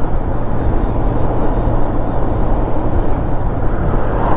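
Touring motorcycle cruising at highway speed: wind rush over the microphone with tyre noise and a steady low engine drone. Near the end there is a brief whoosh as an oncoming car passes.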